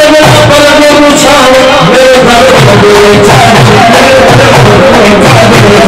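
Music with singing: a held melody line over a steady drum beat that comes in about two seconds in.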